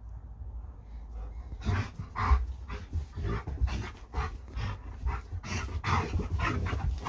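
Alaskan Malamute panting hard in quick, even breaths, about three a second, starting a second or so in, while spinning after its tail.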